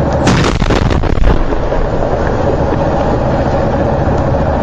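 A sudden crackling explosion blast about a quarter second in, lasting about a second, over a steady loud rumbling background with a faint hum.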